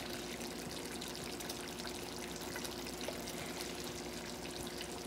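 Chicken curry sizzling steadily in a wok, a fine crackling of hot oil and gravy, with a steady faint hum underneath.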